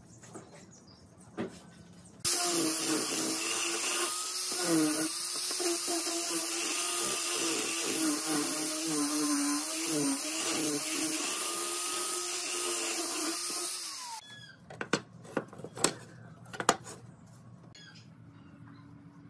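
Small angle grinder fitted with a sanding pad, running and sanding the end grain of a pine block: a steady whine that starts about two seconds in, wavers as the pad is pressed on, and cuts off after about twelve seconds. A few sharp knocks follow once it stops.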